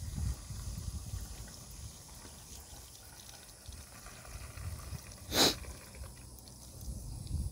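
Gasoline pouring from an upended plastic gas can into a fuel tank: a faint trickle over a low rumble, with one short, louder rush of sound about five seconds in.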